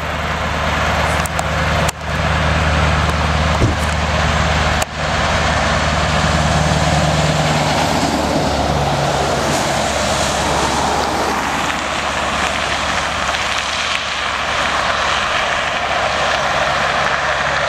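Scania R500 truck's V8 diesel engine running with a steady low note as the truck approaches, then a broad rush of tyre and air noise as it passes close by about eight to eleven seconds in, the sound carrying on as it pulls away.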